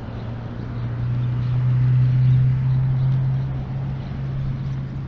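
Steady low engine drone that swells to its loudest about two seconds in and then eases off, over outdoor background noise.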